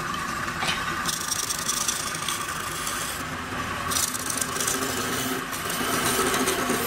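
Wood lathe running while a hand-held chisel cuts into the spinning wooden tray: a scraping, hissing cut that comes and goes in strokes over the steady hum of the lathe.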